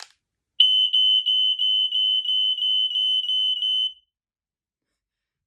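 Two smoke alarms sounding together: a shrill high-pitched alarm tone with quick dips about three times a second, lasting about three seconds and stopping suddenly.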